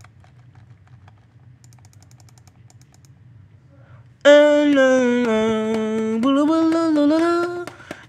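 A low hum with faint clicking. About four seconds in, a loud theme tune starts with the title card: held, voice-like notes stepping up and down in pitch for about three and a half seconds.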